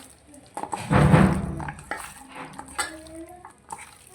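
Hands mixing chicken pieces in flour and spices in a bowl, the bowl clinking and scraping, with a louder clatter about a second in that lasts about a second.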